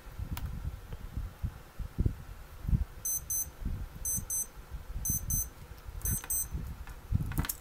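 Electronic alarm beeping in quick high-pitched double beeps, about one pair a second, four pairs starting about three seconds in. Low bumps and rumble run underneath.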